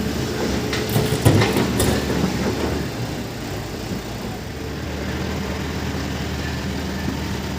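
Heavy diesel earthmoving machinery running at a steady drone, with a few sharp clanks about one to two seconds in.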